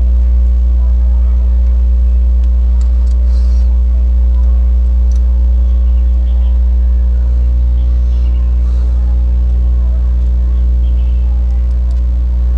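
Steady, loud, low mechanical hum that fills out a little about seven seconds in, with a few faint light clicks over it.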